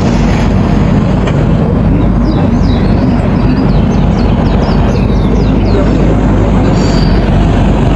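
Excavator's diesel engine running steadily, with a series of short high descending chirps over it.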